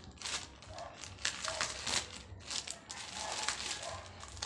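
Plastic courier mailer bag crinkling and rustling in irregular crackles as hands pull it open.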